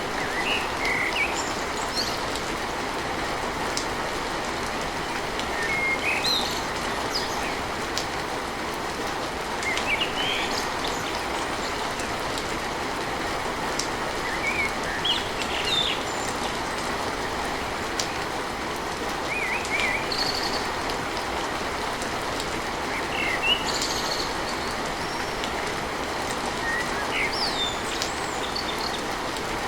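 Steady heavy rain drumming on a tin roof, with short bird chirps scattered every few seconds.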